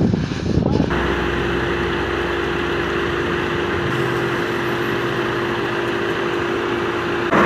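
An engine idling steadily, a constant hum that starts abruptly about a second in, after a second of rough, gusty noise.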